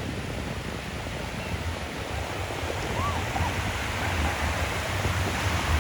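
Pacific Ocean surf washing on the shore: a steady rushing noise with a low rumble, and two faint brief squeaks about three seconds in.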